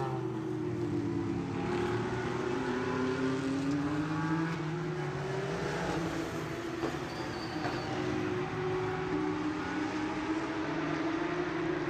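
Race car engine running, its pitch sliding down over the first few seconds and then rising slowly again.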